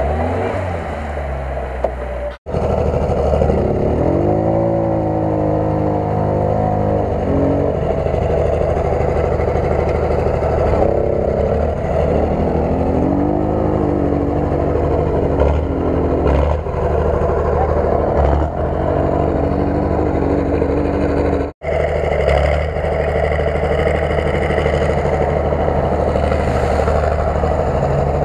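Off-road vehicle engines revving hard while driving through deep mud. A Lada Niva (VAZ-2121) is heard first, then after a cut about two seconds in a quad bike's engine repeatedly rises and falls in pitch. After another cut about 22 seconds in, a second Niva is heard.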